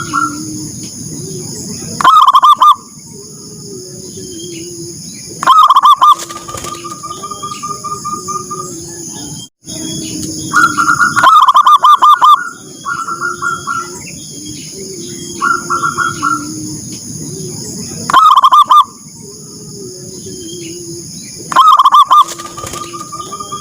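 Zebra doves (perkutut) calling: loud bursts of rapid cooing notes come five times, some trailing off into a run of softer, even pulses. Lower coos continue between the bursts, over a steady high hiss.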